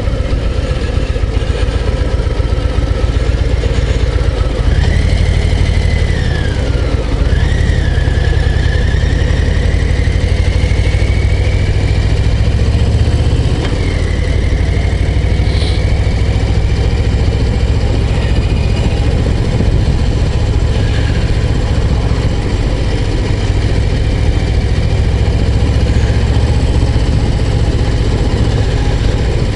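Harley-Davidson Low Rider ST's Milwaukee-Eight 117 V-twin running loud under way, its revs rising and falling a few seconds in and then holding steady.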